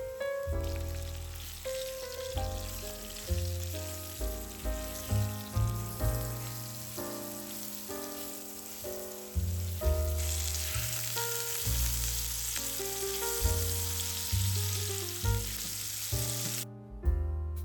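Food frying in oil in a skillet: a steady sizzle that grows louder about ten seconds in and stops suddenly near the end, over background music.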